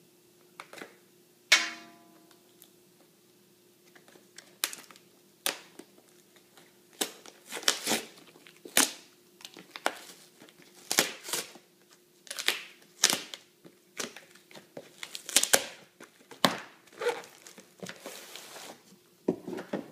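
Cardboard shipping envelope being torn and pulled apart by hand: irregular rips, crinkles and crunches throughout, with one sharp, loud rip about a second and a half in.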